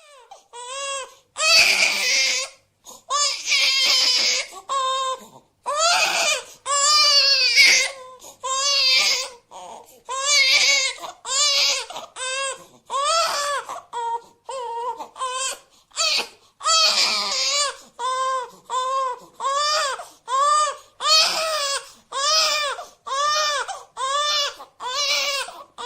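Cartoon crying sound effect: a high-pitched voice wailing in repeated sobs, each cry rising then falling in pitch. The first several seconds hold longer, louder wails, then shorter cries follow about one a second.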